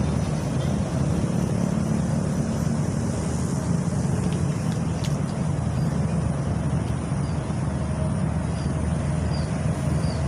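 A steady low rumble with a faint hiss above it and no clear events.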